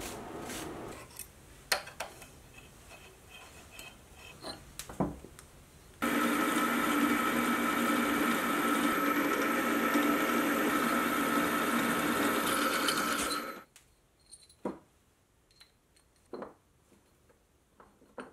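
Milling machine running a twist drill through a metal plate: a steady hum with a constant whine that starts abruptly about six seconds in and cuts off about seven seconds later. Before it, soft scrubbing of an abrasive pad on an aluminium block that fades within the first second; near the end, a few small clicks and taps.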